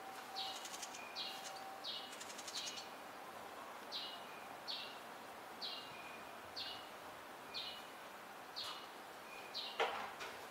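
Barn swallows calling: short, high, downward-sweeping notes repeated about once a second, with some buzzy twittering in the first few seconds. A louder brief burst comes just before the end.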